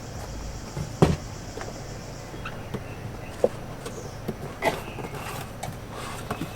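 Scattered knocks and clicks of grill parts and packaging being handled, with one sharper knock about a second in.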